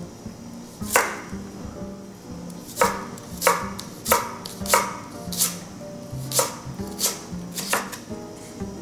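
A kitchen knife chopping food on a cutting board: about nine separate strokes at an uneven pace, over background music.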